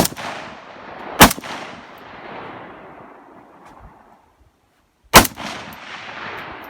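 Three gunshots: two about a second apart, then a third about four seconds later, each followed by a long, fading echo.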